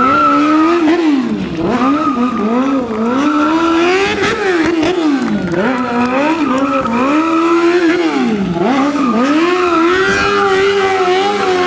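Sport motorcycle's engine revving hard, its pitch swinging up and down again and again. The rear tyre spins and skids on the asphalt in a smoking burnout donut.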